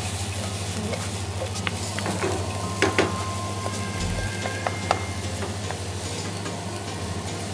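Diced onion and red bell pepper sautéing in olive oil in a frying pan, sizzling steadily while a wooden spoon stirs and scrapes them, with a few sharp knocks of the spoon against the pan, the loudest about three and five seconds in.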